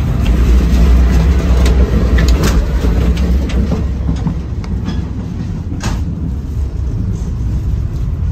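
Caltrain passenger car running at speed: a loud, steady low rumble of wheels on rail with a few clicks and knocks, the sharpest about six seconds in. The rumble is louder for the first few seconds, then settles a little lower.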